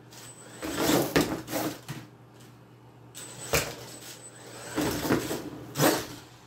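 Brushless electric RC monster truck driven in about four short throttle bursts: motor whirring and tyres scrabbling on the floor, with a couple of sharp knocks.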